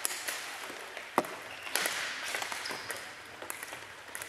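Floorball sticks striking a plastic floorball in shots on goal: sharp cracks, the loudest about a second in and another half a second later, ringing in a sports hall.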